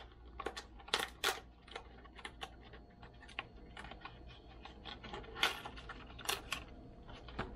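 Irregular clicks and crinkles of a clear plastic fishing-lure package being worked open by hand, with a few sharper snaps about a second in and again around five and a half and six and a half seconds in.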